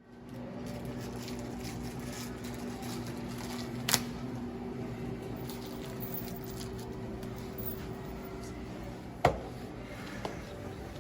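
Steady mechanical hum of room equipment, with two sharp knocks, one about four seconds in and one about nine seconds in.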